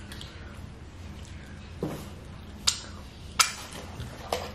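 Close-miked eating noises: four sharp clicks and crunches of someone chewing nachos, spread a second or less apart, over a low steady hum.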